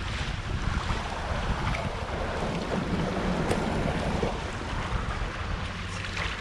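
Steady wind rumble on the microphone over water rushing along the hulls of a Prindle 18.2 catamaran under sail.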